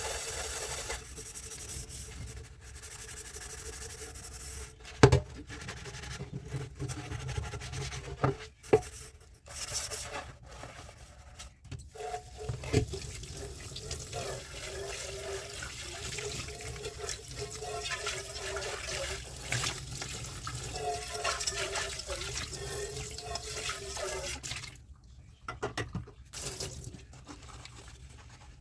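Tap water running into a kitchen sink during dishwashing, with a few sharp clinks and knocks of dishes and utensils. The water cuts off near the end.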